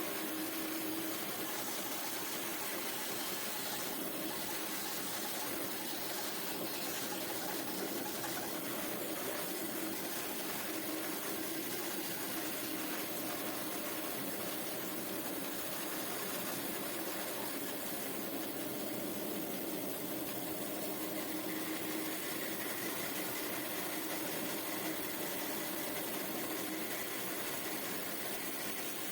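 Homemade wooden band saw running steadily, with a constant hum over a steady whirr.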